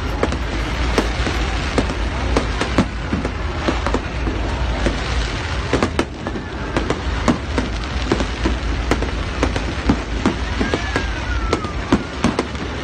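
Fireworks display: aerial shells bursting in a rapid, irregular run of bangs and crackles over a steady low rumble. A falling whistle comes near the end.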